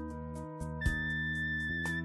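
Background music: held chords that change about a second in, over a light tick about four times a second.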